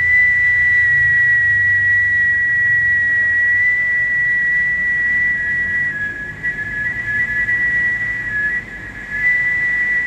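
A man whistling one long, steady, high note, with a slightly lower second tone beside it. The note grows weaker and wavers in loudness in the second half.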